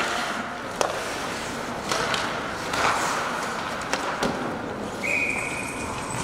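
Live ice hockey play in an arena: skates scraping on the ice, with sharp clacks of sticks and puck. A steady whistle blast sounds about five seconds in.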